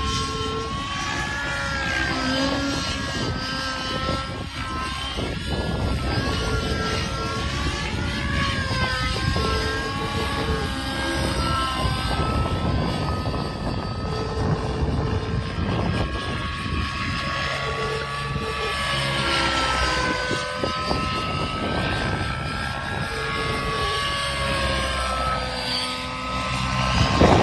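Nitro-powered Protos 700 RC helicopter flying aerobatics: its glow engine and rotor whine run continuously, the pitch rising and falling as it manoeuvres, with a low rumble underneath. It is loudest near the end.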